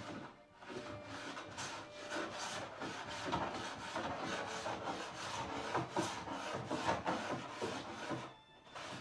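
Hand plane shaving wood in repeated strokes, its waxed sole gliding smoothly. The strokes stop about eight seconds in.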